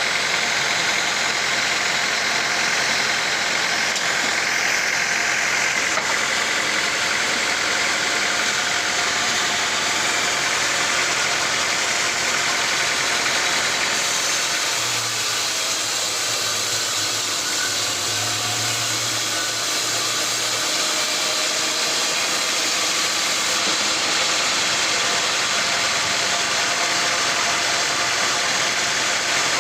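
Sawmill machinery running steadily: an even, engine-like drone with a hiss over it.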